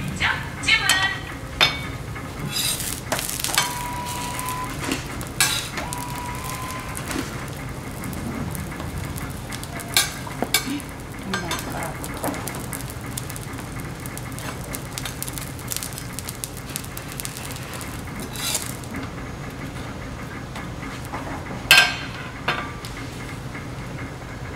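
Food sizzling on a flat-top griddle, with scattered clicks and scrapes of a metal spatula against the plate. A sharp metallic clink comes about 22 seconds in, louder than the rest.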